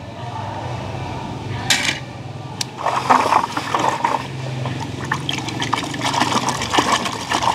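A hand swishing and splashing through thick, murky water, with irregular sloshes and small drips, busiest in the second half.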